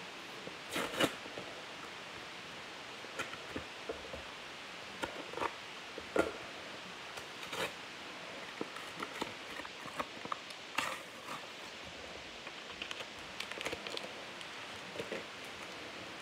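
Trading cards and paper stickers handled by hand: soft, irregular paper rustles and card flicks, a second or two apart.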